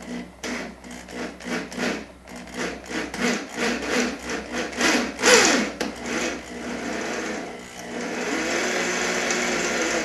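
Metalworking hand tool scraping in quick, even strokes, about three a second, followed by a steady continuous tool sound over the last two seconds that cuts off suddenly.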